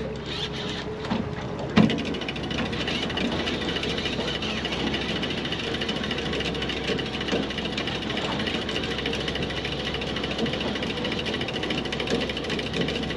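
Fishing reel being cranked steadily to bring in a hooked chinook salmon, with a sharp click about two seconds in.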